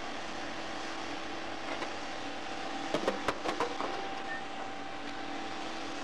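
Steady hum and hiss of an industrial metal-melting furnace, with a quick run of metal knocks and clanks about three seconds in, lasting about a second.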